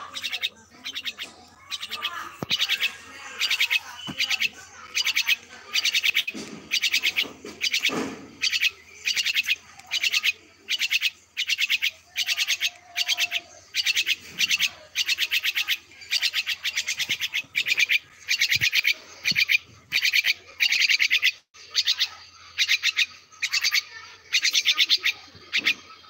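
A bird giving short, harsh rattling calls over and over in a steady series, about three every two seconds.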